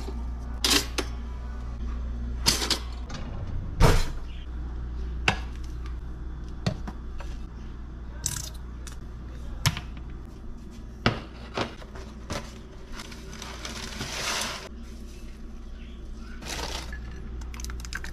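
Dishes and cutlery being handled: scattered clinks and knocks, a dozen or so spread irregularly, over a steady low hum. A longer rustle or scrape comes about two-thirds of the way through.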